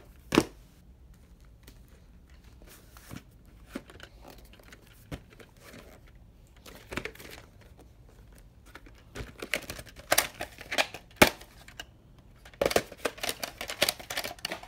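Plastic clamshell VHS case and cassette being handled: scattered clicks and rustling. The clicks and clatter come thicker about ten seconds in and again near the end.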